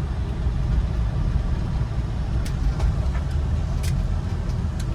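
Steady low rumble of a passenger van's engine heard from inside the cabin, with a few sharp clicks in the second half.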